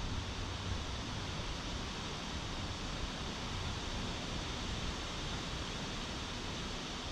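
Wind blowing through the trees: a steady rush of rustling leaves.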